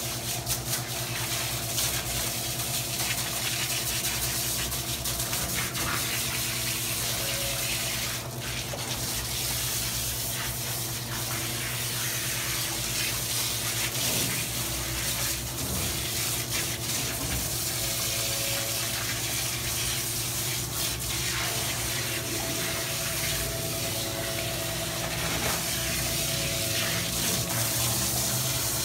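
Water spraying steadily from a handheld dog-bathing sprayer onto a wet dog's coat and the floor of a stainless steel grooming tub, with a steady low hum underneath.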